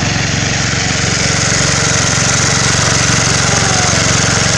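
Hand tractor's single-cylinder engine running steadily with a fast, even chugging as it pulls a harrow through flooded rice-paddy mud.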